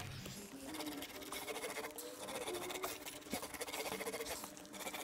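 Small paint roller running wet, runny paint over a fibreglass surfboard: a faint, fine crackle of small ticks as the roller rolls back and forth.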